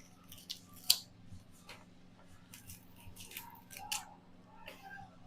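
Scattered light clicks and taps of kitchen utensils during food prep, over a steady low hum.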